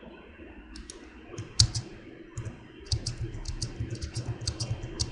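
Computer keyboard keys clicking: a few scattered key presses, then from about three seconds in a quick regular run of taps, several a second, as the Tab key is pressed repeatedly.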